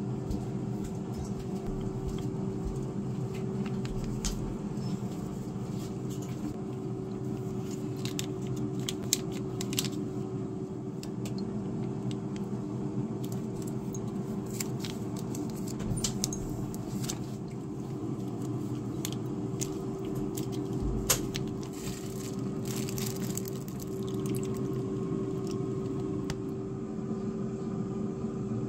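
A steady low machine hum with one constant tone, such as a kitchen fan or appliance motor, under scattered clicks and crinkles of plastic sauce sachets being handled and squeezed into bowls.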